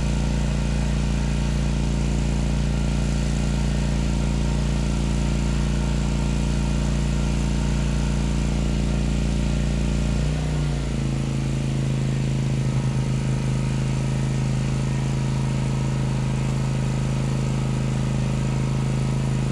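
WEN GN400i inverter generator's engine running steadily. About ten seconds in, its speed drops and it settles at a lower, steady pitch.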